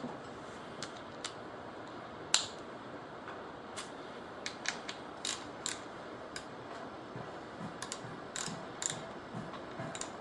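Scattered light metallic clicks and clinks of already-loosened bolts being taken out of the front cover of a Datsun L16 engine to drop its oil pump, with one sharper click a little over two seconds in.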